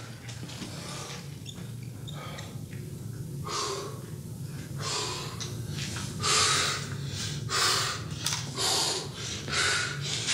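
A man's heavy, forceful breathing: short hard breaths that come quicker from about halfway through, over a low steady hum.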